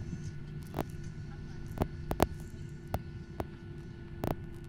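Steady hum inside a Boeing 737-800's cabin while taxiing, from the jet engines at idle, broken by about half a dozen short sharp clicks and knocks, the loudest a little past four seconds in.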